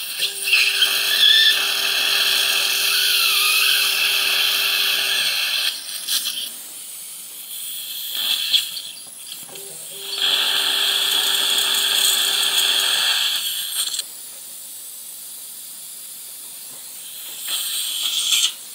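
Dental implant drill handpiece running in two long runs of about five and three seconds, a steady low hum under a loud hiss: first a 2.2 mm twist drill, then a 3.5 mm taper drill preparing the implant site in the jawbone. Quieter hissing fills the gaps between runs.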